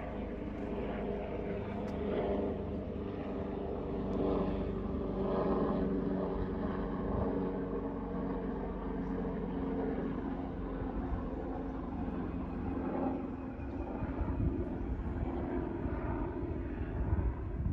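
A steady engine drone with an even pitched hum, which fades away about two-thirds of the way through, over outdoor street ambience.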